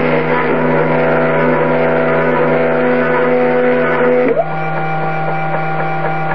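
Homemade CNC router milling plywood: its 200-watt spindle runs steadily with a cutting hiss while the stepper motors whine in several held tones. About four seconds in the whine changes abruptly to a different, higher pitch as the feed motion changes.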